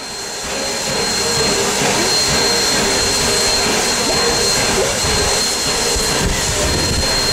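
Valley Railroad No. 40, a 1920 ALCO 2-8-2 Mikado steam locomotive, standing at idle: a steady hiss of escaping steam with a thin, high, steady whine over it, fading in over the first second.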